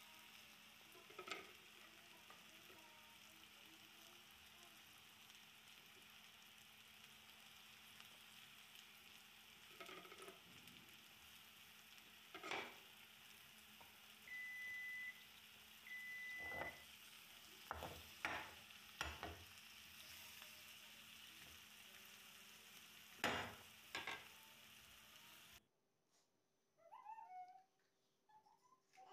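Faint sizzling of potato peels cooking in a pan, with a spoon now and then scraping and knocking against the pan as they are stirred and served. Two short high beeps sound about halfway through, and the sizzle cuts off near the end.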